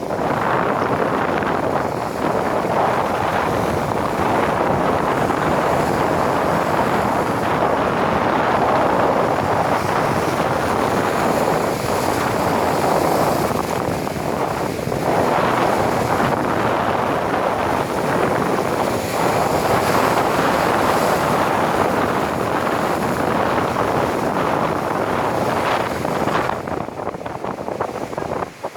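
Strong wind buffeting the microphone at the sea, with surf washing beneath it, rising and falling in slow swells.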